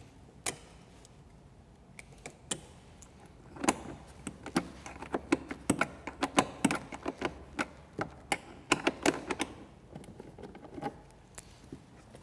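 Sharp clicks and clacks from hand tools and fasteners as the push pins and seat bolts come out of a snowmobile's plastic seat. They come in an irregular run, thickest from about four to ten seconds in.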